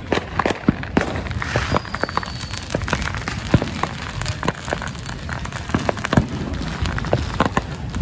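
Fireworks and firecrackers going off, a steady scatter of irregular sharp pops and cracks with no single big boom. A faint, brief high whistle comes about two seconds in.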